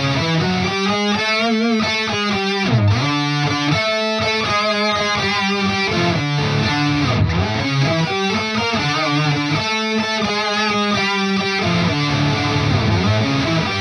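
Electric guitar played through an Electro-Harmonix Intelligent Harmony Machine pitch-shifting pedal, with several notes sounding together as the pedal adds harmony to the played line. The phrases slide up and down in pitch.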